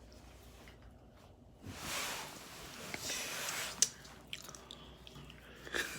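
Eating noises close to the microphone: about two seconds of chewing and crunching with food being handled, then a sharp click and a few small clicks.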